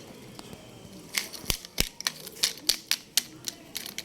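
A rapid, irregular run of sharp plastic clicks and taps from toys, several a second, starting about a second in.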